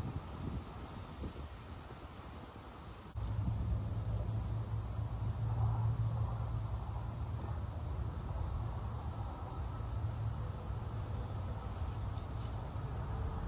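Steady high-pitched drone of insects in the summer yard. About three seconds in, a low steady rumble starts suddenly and carries on under it, louder than the insects.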